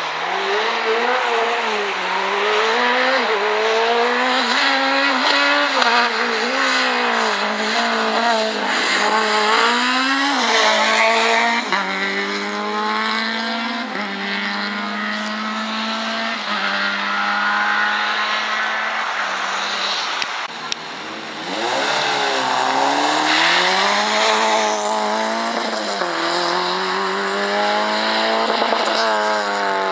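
Rally car engines at hard throttle, revving and accelerating away through the gears: the engine note climbs, drops back at each shift and climbs again. A brief break about two-thirds through, after which a second car accelerates hard through its gears in the same way.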